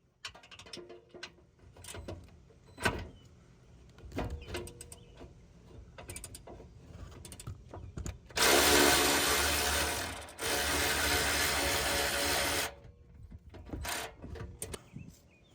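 Hand tools clicking and knocking as bolts are worked loose on a Jeep's rear bumper, then a cordless power tool runs loudly in two bursts of about two seconds each, before more scattered clicks.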